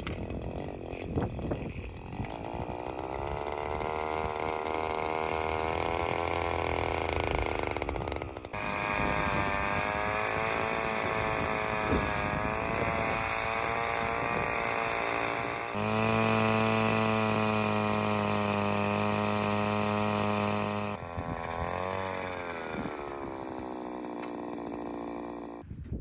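Motor of a power ice auger running as it drills into lake ice. Its speed climbs over the first several seconds, then the pitch jumps abruptly a few times and rises and falls with the load.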